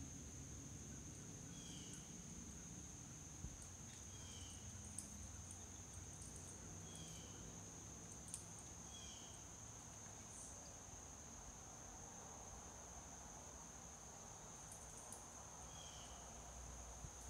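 Faint, steady, high-pitched drone of insects such as crickets, with a short chirp, likely a bird's, repeated about five times at irregular gaps.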